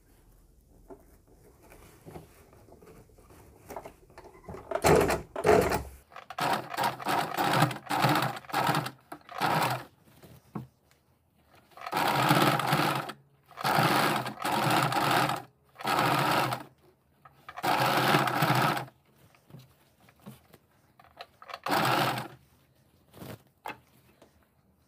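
Electric sewing machine stitching in short runs that stop and start repeatedly, beginning about five seconds in; each run lasts from half a second to a few seconds.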